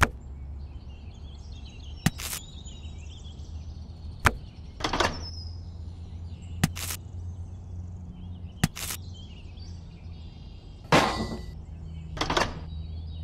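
Small rubber tyres and plastic wheel hubs of a toy model tractor being handled and fitted, giving about ten sharp clicks and knocks, several in close pairs. A steady low hum and faint bird chirps run underneath.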